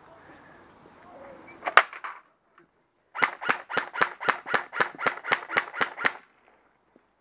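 Airsoft gun firing about a dozen quick single shots, roughly four a second, with one sharp snap a little over a second before them.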